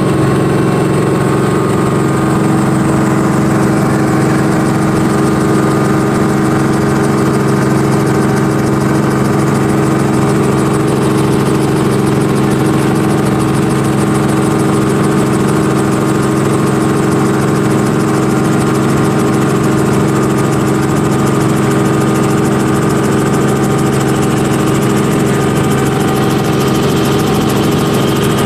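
Robinson R44 Raven helicopter heard from inside the cabin: the piston engine and rotors make a steady drone with a stack of even tones as it climbs after lift-off.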